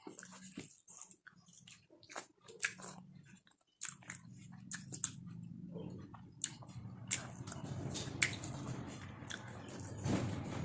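A person chewing mouthfuls of rice and curry close to the microphone, with wet smacking mouth sounds and small crunches. A low steady hum comes in about four seconds in and stays under the chewing.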